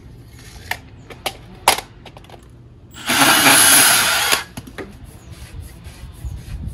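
A cordless power saw cuts through PVC conduit in one steady burst of about a second and a half, starting about three seconds in. A few sharp clicks from handling the tool and pipe come before it, and light knocks follow.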